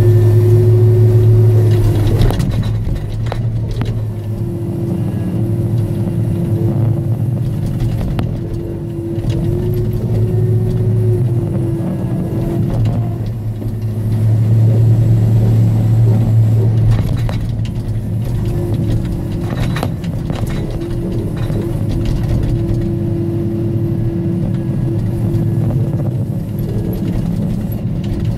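Timbco feller-buncher's diesel engine running steadily under load, with a higher hydraulic whine that comes and goes as the head grabs and swings logs. A few sharp knocks of wood and steel break through.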